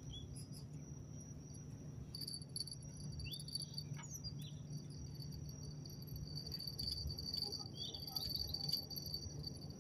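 Insects trilling steadily at a high pitch, with a low steady hum underneath and a few short high chirps.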